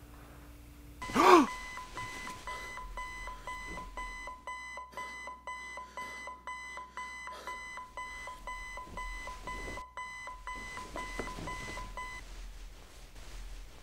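A single loud pistol shot about a second in. Then an alarm clock beeps in quick repeated pulses and cuts off abruptly just after 12 seconds as it is switched off.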